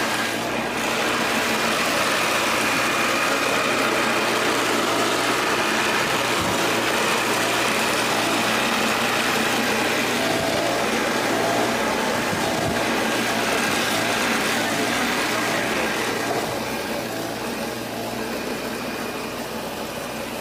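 Motor-driven cassava grating machine running steadily as cassava is fed into its wooden hopper, a loud even grinding hum. It becomes quieter about sixteen seconds in.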